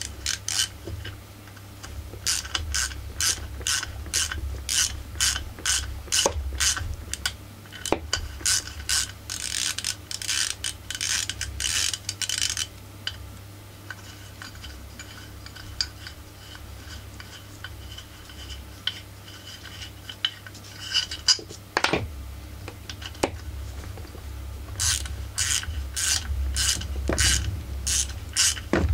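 Ratcheting 8 mm combination wrench clicking in runs of short back-and-forth strokes as it loosens muffler bolts, about two clicks a second, with a quieter stretch in the middle broken by a few single clicks.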